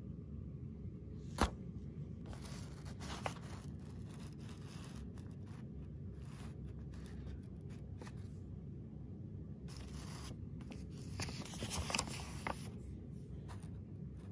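Glossy paper mailer being handled and turned over: rustling and crinkling in spells, a couple of seconds in and again, louder, after about ten seconds, with one sharp click near the start, over a steady low background rumble.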